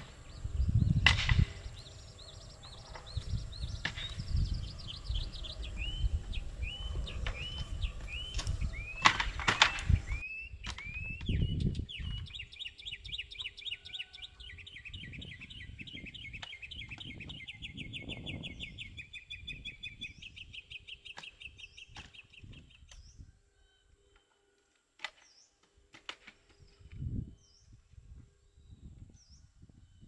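Wild birdsong: a series of chirps stepping down in pitch, then a long rapid trill, over the clatter, knocks and rustling of a folding wooden chair being opened and set down.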